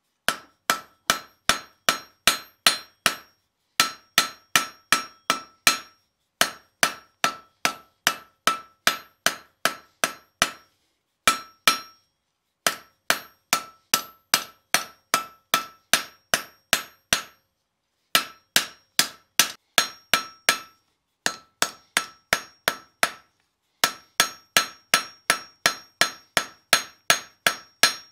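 Hand hammer striking a red-hot steel bar on a Fontanini anvil, drawing out a tapered point: blows about three a second in runs of five to eight, with short pauses between runs, each blow with a bright ring.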